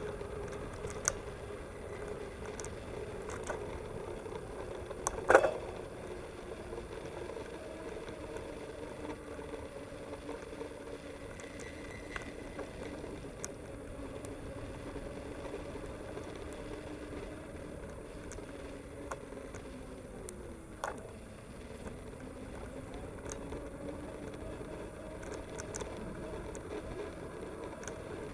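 A mountain bike rolling along brick paving: a steady tyre hum that slides up and down in pitch as the speed changes, with scattered clicks and rattles from the bike. One sharp knock about five seconds in, and a smaller one near twenty seconds in.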